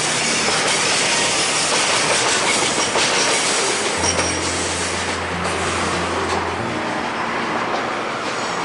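A train passing over a level crossing, a loud steady rumble of wheels on rail with faint repeated clicks from the rail joints.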